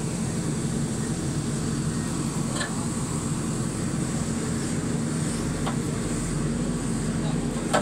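JCB 3DX backhoe loader's diesel engine running steadily, with a few short clicks, the sharpest near the end.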